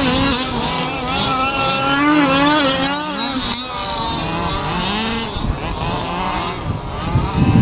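Small two-stroke petrol engines of large-scale (1/5-scale) RC cars running on the track, their pitch rising and falling with the throttle, more than one engine at a time.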